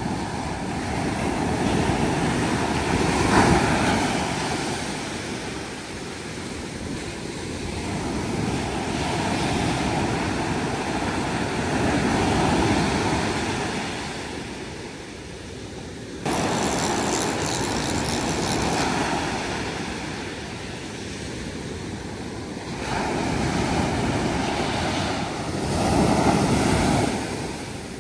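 Ocean surf breaking and washing up the beach, a rushing noise that swells and fades every few seconds as each wave comes in. The level jumps abruptly a little past halfway.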